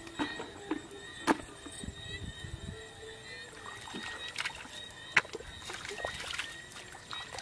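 Hands splashing and sloshing in shallow muddy water while groping for fish, with irregular small splashes and two sharp slaps, about a second in and about five seconds in.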